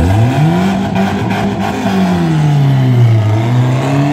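A car engine revving up hard as it pulls away, easing off about two seconds in, then revving up again near the end.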